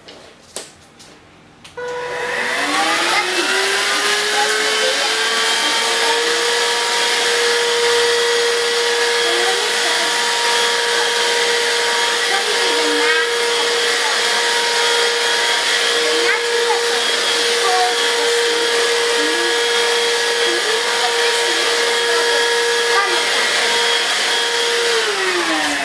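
Dibea F6 cordless stick vacuum switched on about two seconds in: its motor whine rises quickly to a steady high pitch and runs while the cleaning head picks up rolled oats from a hard floor. Near the end it winds down as it is switched off.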